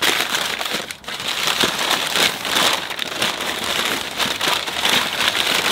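Packing paper crinkling and rustling as layers of wrapping are pulled off, with a brief lull about a second in.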